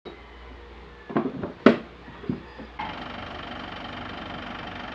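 Metal tools clattering and knocking as they are rummaged in a toolbox, a few sharp knocks with the loudest about a second and a half in. Near the three-second mark the sound switches abruptly to a steady background hum.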